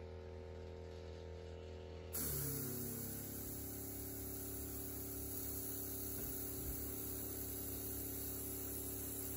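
Airbrush spraying thinned paint: from about two seconds in, a steady hiss of air through the nozzle starts suddenly and keeps going, over a low steady hum.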